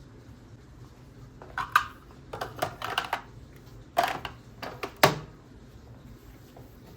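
A quick, irregular run of about ten light clicks and knocks, clustered from about one and a half to five seconds in, the loudest near the end.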